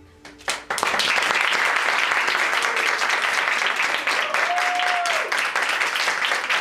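Audience applauding: a few single claps about half a second in, then steady, dense applause from a small crowd, with one voice calling out briefly near the end.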